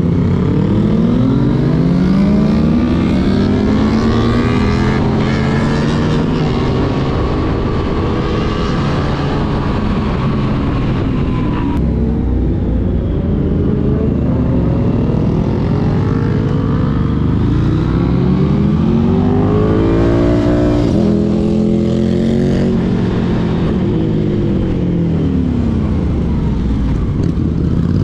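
Yamaha MT-09 SP's inline three-cylinder engine, heard from the rider's seat, repeatedly revving up under acceleration and falling back off the throttle for the bends, with a short break in pitch partway through as it shifts.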